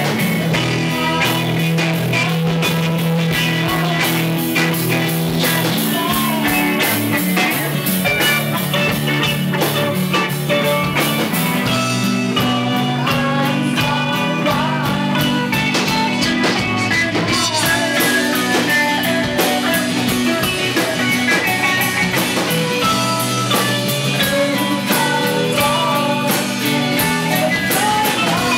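Live rock band playing: strummed acoustic guitar and electric guitar over bass and drums, with a woman singing.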